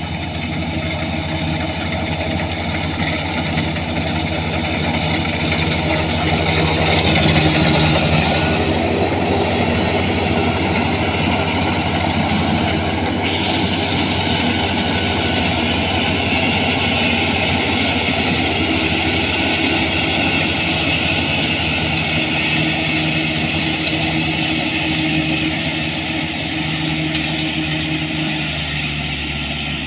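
Kubota combine harvester's diesel engine running steadily, a little louder about a quarter of the way in.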